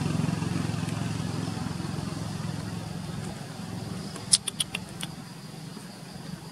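A motor vehicle's engine running nearby, a low steady hum that slowly fades. About four seconds in, a quick run of four or five sharp clicks.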